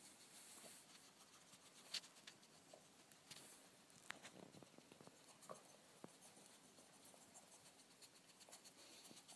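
Faint scratching and soft pattering of pet skunks' claws on carpet as they nose and paw a rubber Kong toy, with a few sharper ticks scattered through.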